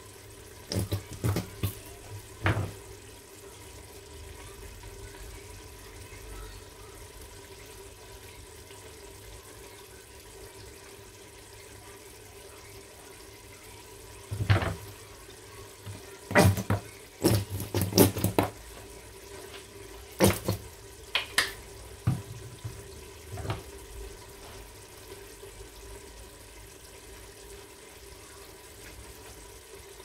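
Sharp clicks and knocks of butter and utensil against a metal oven baking tray as a whole raw chicken is spread with butter, in a cluster about a second in and a busier run around the middle, over a steady low hiss and faint hum.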